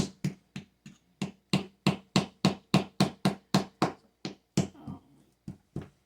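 Wooden mallet striking a gem dig brick over and over, a quick, even run of about three knocks a second that thins out near the end.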